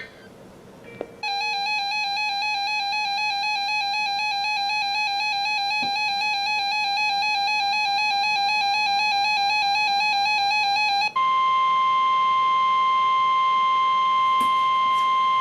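An electronic alert tone, buzzy and warbling rapidly at about four wobbles a second, sounds for about ten seconds. Then comes NOAA Weather Radio's steady single-pitch warning alarm tone, the signal that a warning broadcast is about to follow.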